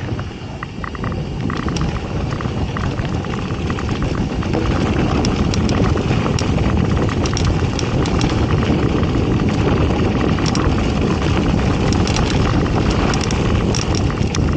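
Mountain bike rolling fast down a loose dirt trail: tyre noise on dirt and gravel mixed with wind rushing over the microphone, with scattered light clicks and rattles from the bike. It grows louder over the first few seconds, then holds steady.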